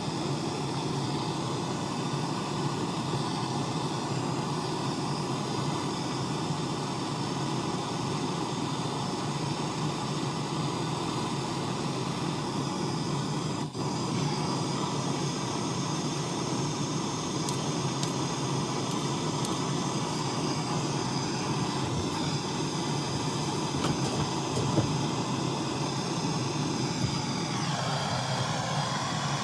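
Steady mechanical running noise with a hum, unbroken apart from a brief dip partway through.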